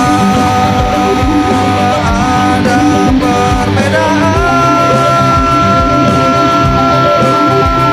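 Rock band playing with electric guitar, bass and drums, a guitar note held high and steady from about four seconds in.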